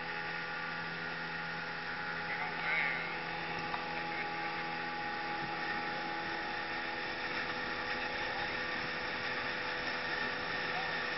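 Outboard motor of a small open boat running at a steady throttle: an even, unchanging hum.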